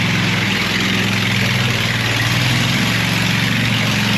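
A heavy engine running steadily at an even speed, with a strong rushing noise over its low hum.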